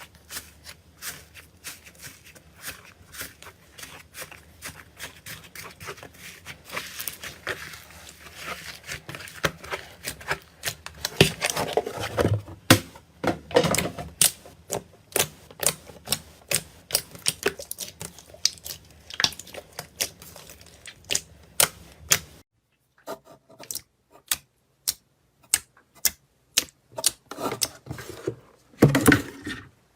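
Slime being pressed and squeezed, giving a quick run of sharp clicks and pops, with louder, denser squishing about halfway through and again near the end. The background hum drops out suddenly about two-thirds of the way in, after which the clicks come more sparsely.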